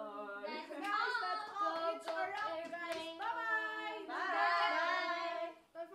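Several women's voices singing and calling out together in a sing-song way, ending on one long held note about four seconds in. A few hand claps come with them.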